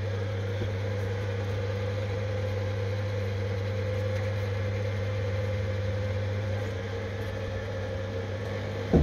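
Electric linear actuator motor running steadily as it lowers a wall-mounted folding CNC table from upright to level, a continuous mechanical hum.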